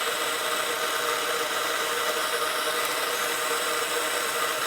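Steady whir of a small electric fan motor, an even hiss with a few constant tones.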